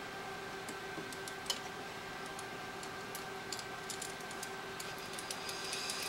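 Faint, scattered light clicks and ticks, coming more often from about three and a half seconds in, from small tools and parts being handled while the battery of a 3rd-generation iPod is being taken out. A steady electrical hum runs underneath.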